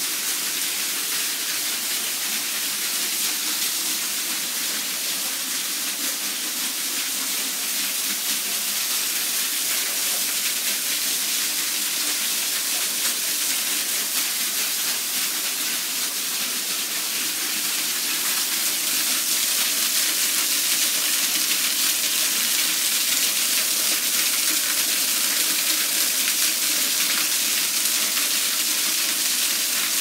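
Small mountain waterfall splashing down over rocks: a steady rushing hiss of falling water that grows a little louder about two-thirds of the way through.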